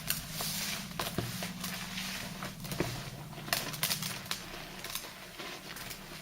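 Thick soap lather and sea-salt paste being worked by hand, wet and crackly, with many irregular sharp clicks.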